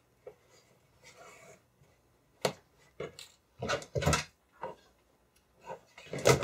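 Hands handling a piece of spandex-covered plastic canvas and its sewing thread on a work table: an uneven run of light clicks, taps and rustles. The loudest knock comes near the end.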